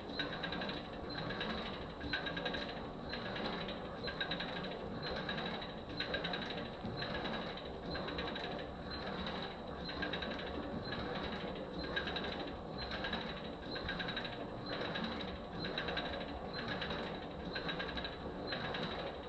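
Kayak paddle ergometer in steady use: the flywheel whirs and its cord and clutch mechanism rattles, surging about once a second as each paddle stroke is pulled on alternating sides, over a constant high whine.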